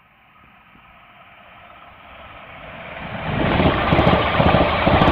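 Class 350 Desiro electric multiple unit approaching and running past close by: the rumble of its wheels on the rails grows steadily louder and is loudest from about three and a half seconds in, with a few sharp clicks near the end.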